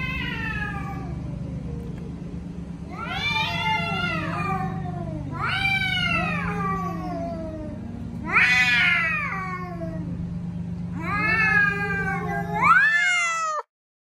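Male cats caterwauling: a series of long, drawn-out yowls that rise and fall in pitch, one after another, loudest around the middle and near the end, over a steady low drone. The sound cuts off suddenly near the end.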